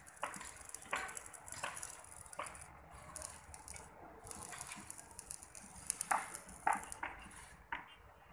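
Welding arc crackling and sizzling, breaking off briefly a few times, with scattered short sharp sounds over it.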